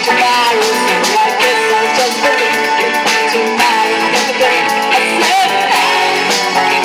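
Live rock band playing loudly: electric guitars over drums with steady cymbal strokes, and a lead melody that bends in pitch.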